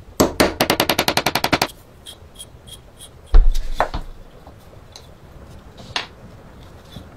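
A brass hammer striking a steel pin punch to drive a rusted pin out of a small gun. First comes a rapid run of about eighteen light metallic taps over a second and a half. About three seconds in there is a heavier knock with a deep thud, then a single sharp tap near six seconds.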